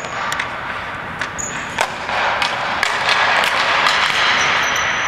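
Ball hockey play: sharp knocks and clacks of sticks and ball, a few short high squeaks, over a steady wash of noise that grows louder about two seconds in.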